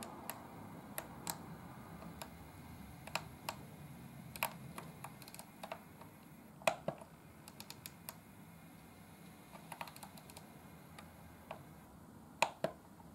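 Arnold N-gauge class 627 diesel railcar model running along the track with its sound function switched off, so no engine sound plays: a faint low hum with scattered light clicks, two of them louder, one about halfway through and one near the end.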